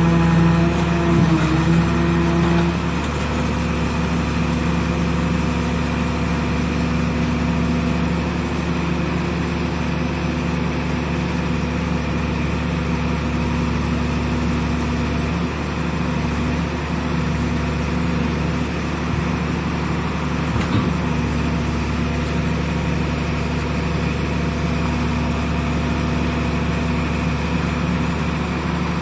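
Engine of the baler's power unit running steadily with a constant hum. About two and a half seconds in, a stronger higher tone drops away and the running settles slightly quieter.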